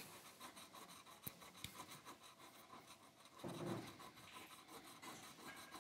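Faint scratching and rubbing of a coin on a Triss scratch-off lottery ticket, with a brief low sound a little past halfway.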